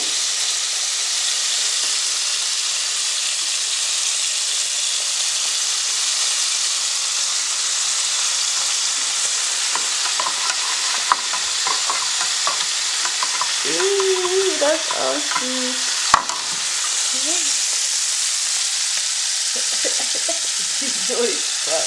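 Pork cubes frying in hot lard in a pan: a steady sizzle, with a few light clicks and one sharp click about two-thirds of the way through.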